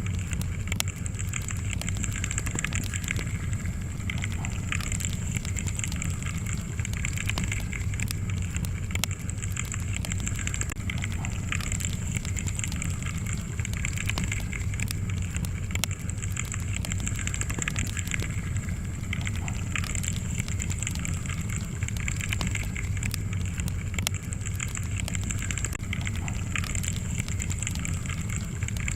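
Wood fire crackling in a fireplace: a steady low rumble of flames with frequent small pops and snaps scattered throughout.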